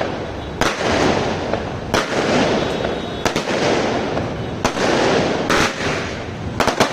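Consumer fireworks cake (GLK 'Night Breaker', 36 shots) firing, with a sharp report about every one to one and a half seconds over a steady, dense noise of bursting effects.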